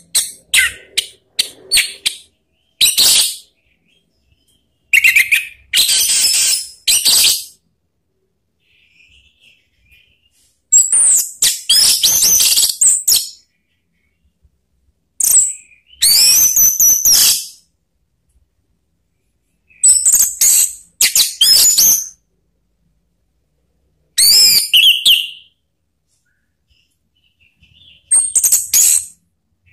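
Orange-headed thrush (anis merah) singing: loud, high whistled and chattering phrases, each lasting a second or two, about eight of them with short pauses between.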